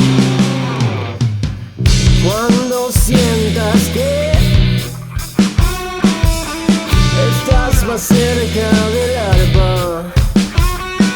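Rock band playing: electric guitars, bass guitar and drum kit, with a lead line of sliding, bending notes. A held chord fades at the start, and the full band comes back in about two seconds in.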